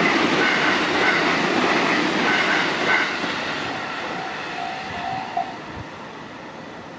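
Tarumi Railway diesel railcar running over the level crossing, wheels clattering on the rails. The noise is loud for about three seconds, then fades away.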